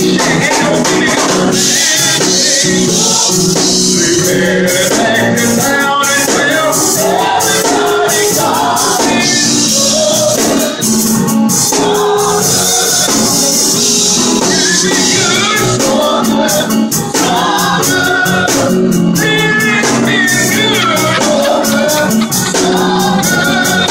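Live gospel music: voices singing over a church keyboard with a fast, steady percussive beat.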